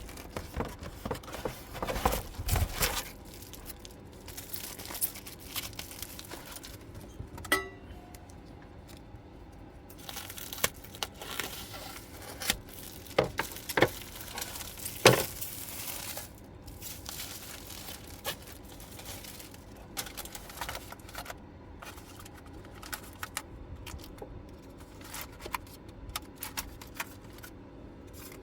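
Packaging being handled: paper or plastic tearing and crinkling, with scattered clicks and short knocks, the sharpest about halfway through.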